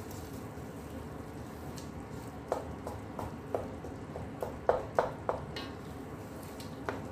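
Wooden spatula stirring thick onion-tomato masala cooking in ghee in a stainless steel pot, over a steady low background. From about two and a half to five and a half seconds in the spatula knocks sharply against the pot several times, and once more near the end.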